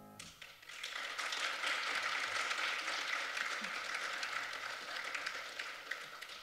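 Audience applauding at the end of a song: the clapping starts a moment in as the last piano chord stops, swells within the first second, holds steady and dies away near the end.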